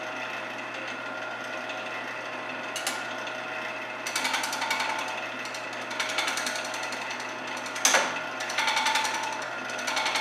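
Wood lathe motor running, with a gouge cutting a spinning hardwood bowl blank at about 650 rpm. From about four seconds in the tool chatters against the uneven wood in rapid rattling runs, and a sharp knock near the end is the gouge catching.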